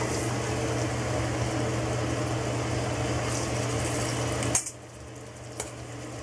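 Jumbo shrimp sizzling in hot olive oil in a stainless steel pan, over a steady mechanical hum. About four and a half seconds in the hum cuts off abruptly, leaving a fainter sizzle and one click.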